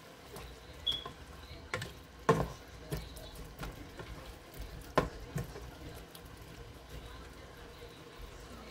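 Plastic spatula knocking and scraping against a nonstick frying pan as onions and patties are stirred, a few scattered sharp knocks, the loudest about two and a half and five seconds in, over a faint sizzle of frying.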